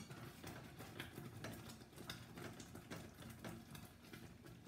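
Faint, irregular ticking and clinking of a metal spoon against a stainless steel saucepan as strawberry jam is stirred, a few ticks a second.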